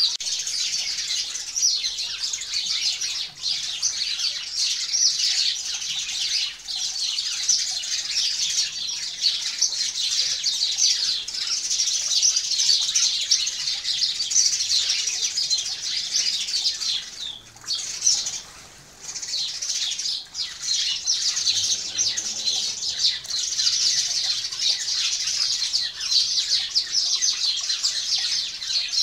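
A crowd of sparrows chirping continuously in a dense, overlapping chatter, thinning out briefly twice a little past the middle.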